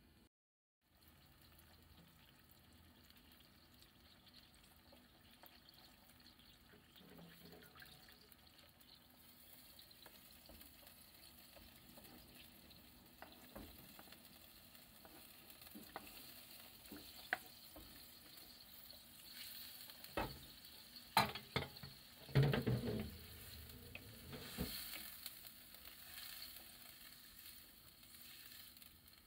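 Broth with pork and shimeji mushrooms simmering in a frying pan, a faint bubbling hiss that slowly builds. About two-thirds of the way through come a cluster of loud knocks and splashes as cubed tofu is slid in off a cutting board and stirred with a wooden spatula.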